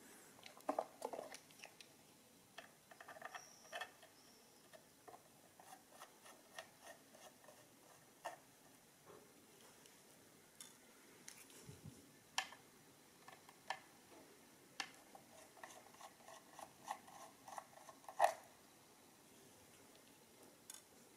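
Faint scattered clicks, taps and short runs of quick ticking from a screwdriver working the front-plate screws of a metal-cased Beaver mechanical adding machine as it is handled and turned, with the sharpest click near the end.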